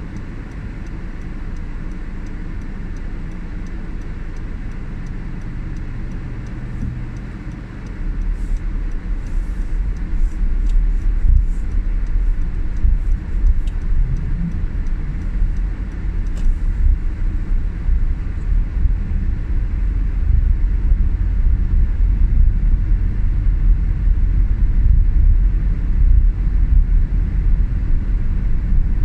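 Low rumble of a car heard from inside the cabin, engine and road noise, getting louder about eight seconds in as the car drives along a snow-covered road.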